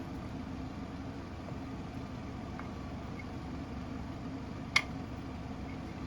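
Steady low mechanical hum in the background, with one sharp click near the end as parts of the septic air pump are fitted together by hand.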